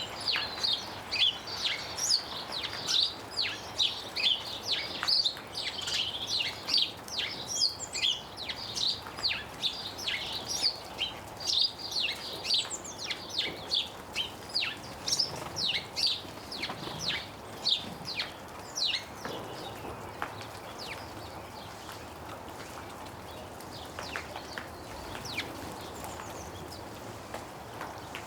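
Small garden birds chirping in a busy, rapid chorus, recorded close up from inside a tree; about two-thirds of the way through the chirping thins out to a few scattered calls.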